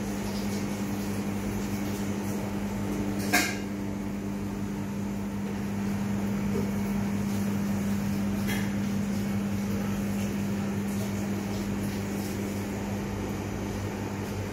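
Steady machine hum, such as a refrigeration unit or fan, with a sharp click about three seconds in and a fainter click near the middle.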